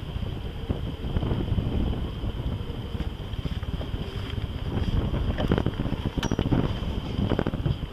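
Wind buffeting the microphone aboard a moving sailboat, in gusts that grow stronger after about five seconds, over a steady faint high whine.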